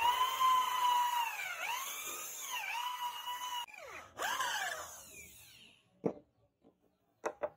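Electric hand drill boring into the end of a wooden knife handle: a steady motor whine that dips in pitch twice as the bit bites. It stops, spins up briefly again and winds down, followed by a few sharp knocks near the end.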